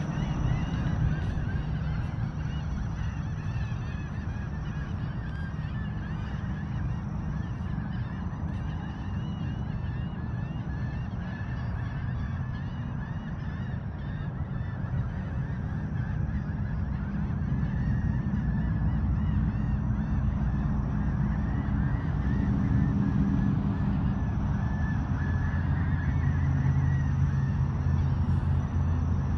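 A flock of birds calling continuously, with many short overlapping calls, over a steady low rumble that grows a little louder in the second half.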